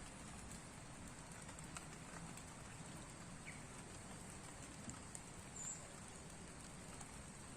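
Light rain falling: a faint, even hiss with scattered drops ticking.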